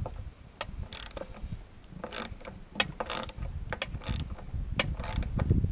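Irregular metallic clicks and small knocks of hand tools working loose a fuel line fitting on a lawn mower carburetor.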